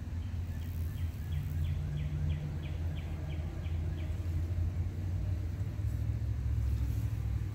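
Steady low outdoor rumble with a bird repeating a short high note about three times a second, a run of about a dozen notes that stops about four seconds in.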